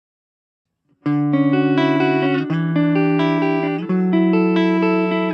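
PRS Custom 22 electric guitar played through a Blackstar Fly 3 mini amp on its clean channel. Chords start about a second in and ring on, changing every second or so.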